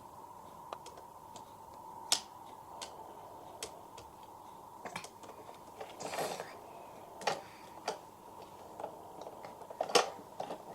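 Irregular light clicks and taps, about a dozen spread over ten seconds, with a short rustle about six seconds in, over a faint steady hum.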